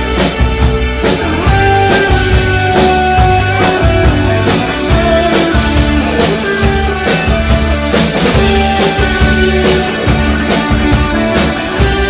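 Live new wave band playing loud: electric guitar and keyboards over a steady drum beat.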